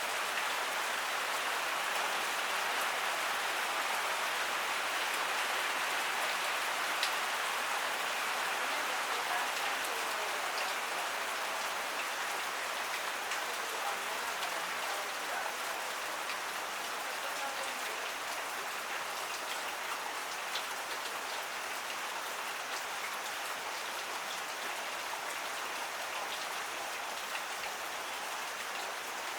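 Heavy tropical rain falling steadily, a dense even hiss with scattered sharp drop hits.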